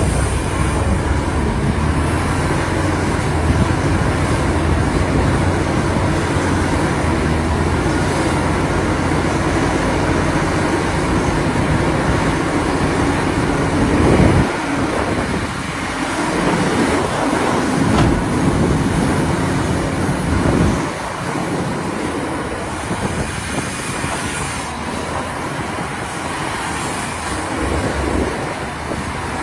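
Heavy diesel mining machinery running, a dense continuous mechanical rumble with a deep engine note. About 14 seconds in, the sound shifts and becomes slightly quieter and more uneven.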